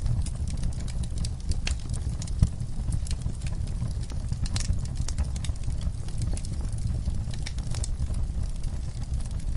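Wood fire in a fireplace crackling: irregular snaps and pops over a steady low rumble of the flames, with one sharper pop about two and a half seconds in.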